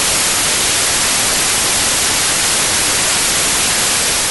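Loud, steady hiss of analog television static, a white-noise 'snow' sound with no tones or rhythm in it.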